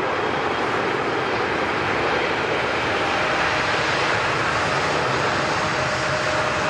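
Passenger jet's engines running with a steady rushing noise, a faint high whine coming in about halfway through.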